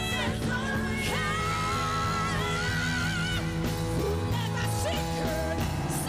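Live band music with singing: a voice holds long wavering notes over electric keyboard and bass.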